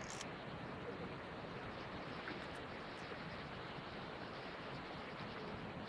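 Steady rush of falling water from the Tamul waterfall, an even, unbroken hiss.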